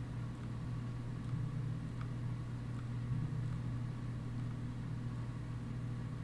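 Steady low background hum, with a few faint clicks about two seconds in.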